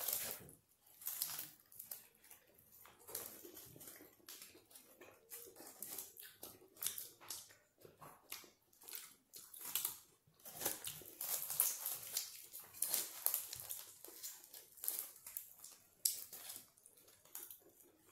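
A person chewing a mouthful of shawarma wrap, with irregular wet smacks and clicks from the mouth.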